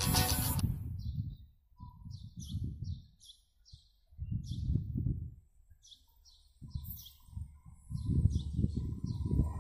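Small birds chirping in quick repeated calls, over irregular gusts of wind buffeting the microphone.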